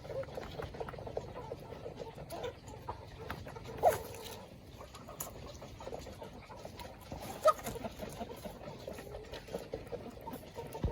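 Chickens clucking softly over a patter of small taps, as of pecking at feed, with two short louder calls, one about four seconds in and one past the middle.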